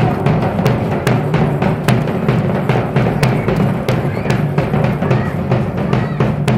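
Large stand-mounted drums beating a steady, fast matachín dance rhythm, about three sharp strokes a second over a deep, booming drum tone.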